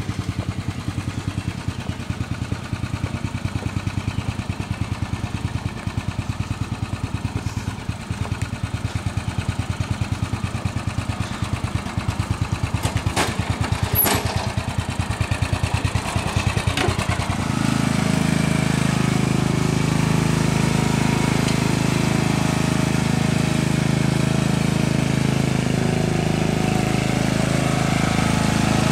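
Murray riding mower's 14.5 hp Briggs & Stratton overhead-valve engine running steadily with a fast, even pulse. About seventeen seconds in it gets louder and fuller and stays that way.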